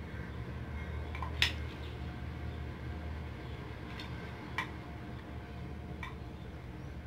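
A few light clicks and taps of small erasers being handled and set down on a tiled floor, over a steady low hum. The sharpest click comes about a second and a half in, another about four and a half seconds in.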